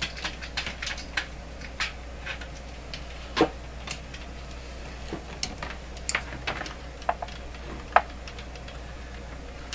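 Irregular light clicks and taps as a plug-in voltage tester and its test leads are handled on a workbench, over a low steady hum.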